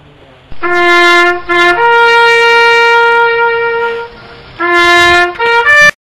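Trumpet-style brass call of loud held notes: a low note, a short repeat, a long higher note, then the low note again and a few quick rising notes before it cuts off sharply.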